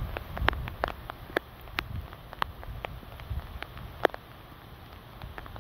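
Storm wind on the microphone easing off in the first second, then scattered, irregular sharp ticks of raindrops striking close by, about one to three a second.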